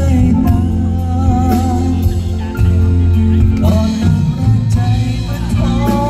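Live band playing a Thai pop song: electric bass, electric guitar and keyboard, with a woman's voice singing a wavering melody line over a strong bass.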